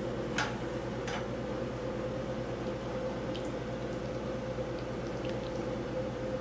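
A steady background hum, with two sharp clicks in the first second and a few light ticks later, as a metal spoon scoops stir-fried chicken and mushroom topping out of a nonstick frying pan.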